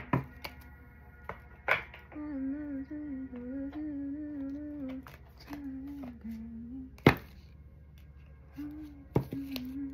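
A woman humming a wavering tune in short phrases, with a few sharp taps, the loudest about seven seconds in.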